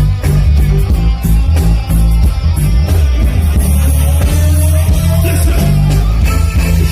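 Live reggae band playing, with a heavy bass line and electric guitar.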